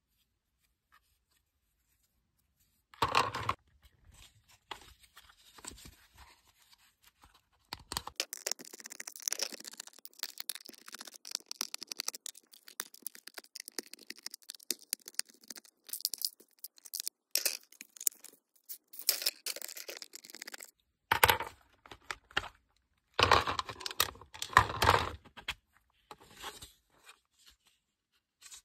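Hard plastic shell parts of a large Lego Galidor toy being handled and pulled apart, with scratchy clicking, scraping and clattering of plastic on plastic. A brief clatter comes about 3 s in, a long stretch of fast scratchy clicking follows, and louder clattering comes near the end.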